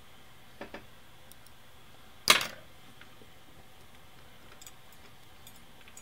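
Cloth-wrapped tweezers working against the metal gears and cams of a typewriter's carrier mechanism: two faint clicks about half a second in, then a louder, brief metallic scrape a little after two seconds.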